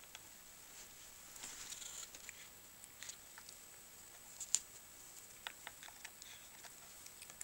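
A cat chewing and biting on a stick: faint, irregular clicks and crunches of teeth on the stick, with a sharper click about four and a half seconds in.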